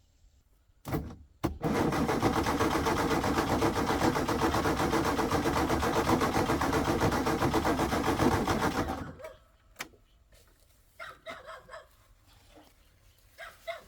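A motor starts with two short bursts, runs loud and steady for about seven seconds, then stops.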